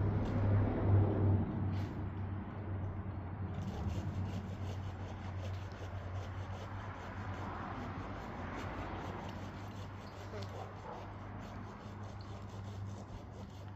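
Chainsaw idling steadily after a cut, louder in the first couple of seconds and then softer, with rubbing and scraping of wood and branches over it.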